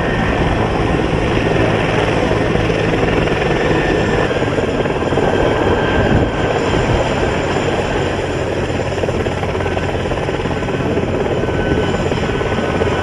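Helicopter running close by, a loud steady rotor and turbine noise without pause.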